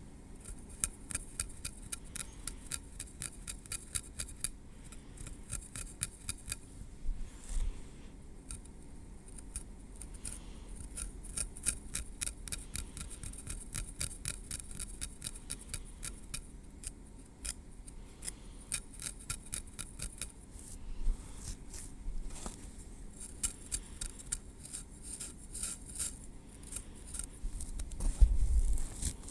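Metal tweezers clicking and ticking against hair and scalp in runs of small sharp clicks, several a second, with short pauses between runs. A low muffled bump near the end is the loudest moment.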